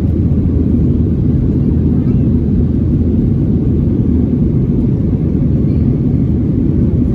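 Steady low rumble of a Boeing 737-900ER cabin in the climb: the CFM56-7B engines and airflow over the fuselage heard from a window seat.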